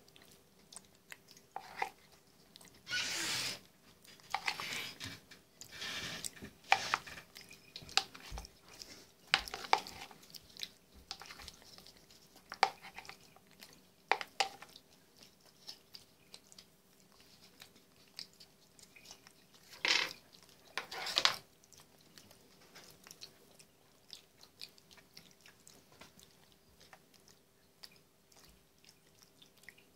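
Javan (long-tailed) macaque eating soft food from a plastic bowl: irregular wet chewing and mouth noises with clicks of a plastic spoon on the bowl. Louder noisy stretches come about three seconds in and again around twenty seconds in, and the sounds thin out near the end.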